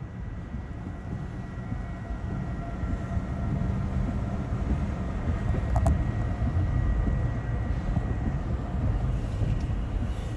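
A tornado's wind roar: a deep, steady rumble that swells a little toward the middle, with faint steady whistling tones above it.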